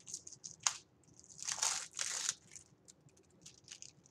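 Plastic wrapping crinkling as it is handled: a run of short crackles, with a longer, louder crinkle from about one and a half to two and a half seconds in.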